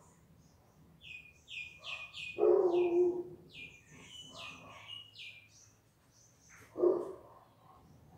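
A songbird sings a run of short, high, falling chirps, two to three a second. A dog barks twice over it: a longer bark about two and a half seconds in, which is the loudest sound, and a short sharp one near the end.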